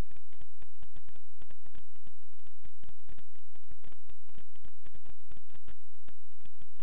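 Dense, irregular crackling clicks over a steady low hum, like static or interference on the recording.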